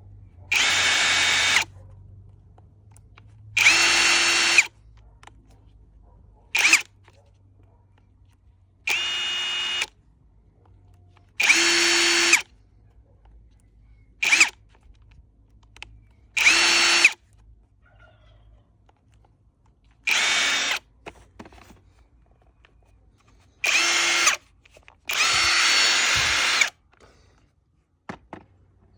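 Electric angle grinder switched on and off in short bursts, about ten times, each a high motor whine lasting about a second with quiet gaps between.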